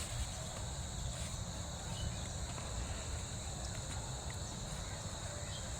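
Steady high-pitched chorus of insects such as crickets, with a low rumble underneath.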